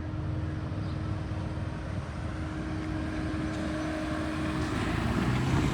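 Steady outdoor engine noise from distant traffic or an aircraft, with a faint steady hum that stops about three-quarters of the way through and the overall noise growing slightly louder toward the end.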